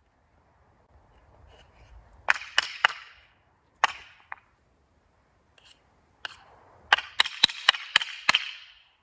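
Sharp knocks and cracks of wood being struck: a cluster of about four a little past two seconds in, single strikes near four and six seconds, then a quick run of about six strikes near the end.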